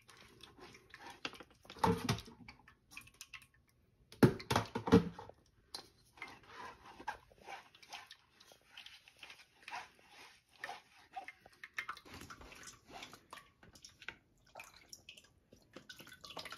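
Ground soybeans being pressed and scraped through a fine metal mesh sieve into a steel bowl to strain out soy milk: a run of soft wet scraping and squishing, with a few louder knocks about 2 seconds in and again 4 to 5 seconds in.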